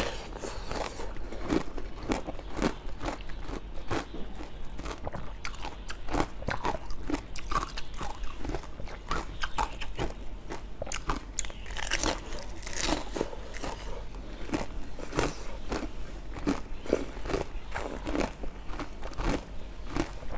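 Close-miked biting and chewing of a ball of pomegranate seeds: dense, irregular crunching and crackling of the seeds bursting between the teeth, kept up throughout.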